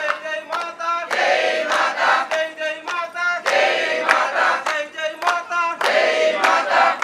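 A procession crowd chanting in unison, many voices repeating short phrases over and over, with sharp strikes about twice a second.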